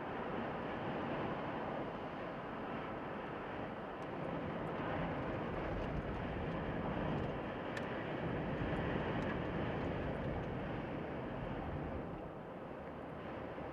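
Highway traffic going by: a steady rushing noise that swells and eases as vehicles pass.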